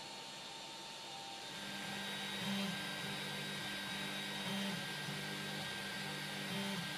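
A steady low hiss, then about a second and a half in a HyperCube 3D printer is heard printing: its stepper motors whine in short tones that change pitch with each move of the print head, over the steady whir of the cooling fans.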